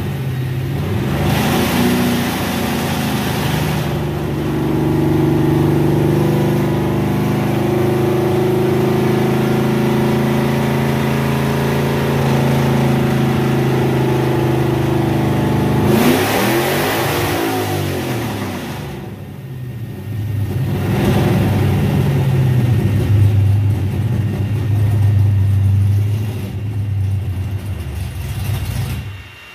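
Stroked 540-cubic-inch big-block Mopar V8 of a 1965 Plymouth Fury running under load on a chassis dynamometer: held at a steady speed for about twelve seconds, then a louder burst about halfway through with the pitch sweeping up and back down, then steady again at a lower pitch until it drops off near the end.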